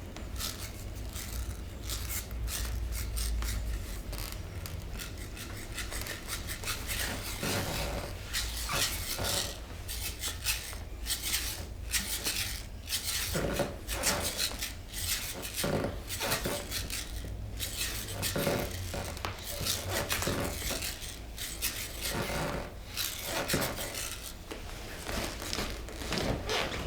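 A steady run of short clicks, taps and rubbing scrapes at an uneven pace, a few louder knocks among them.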